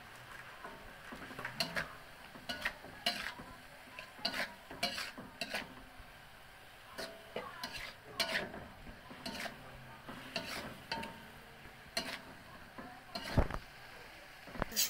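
Metal spatula scraping and clinking irregularly against an aluminium wok while stirring shredded carrots and cabbage cooking in a little water, with a low sizzle underneath. There is one louder knock near the end.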